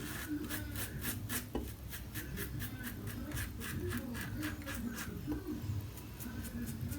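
Short, quick strokes on lathered skin during a wet shave, about three a second, each a brief scratchy rasp.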